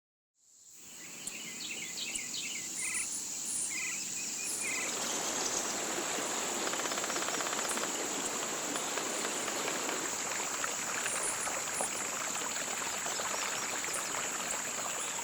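Morning nature ambience fading in: a steady high-pitched drone of insects, with birds chirping through the first few seconds, and from about five seconds in an even rushing like running water from a stream.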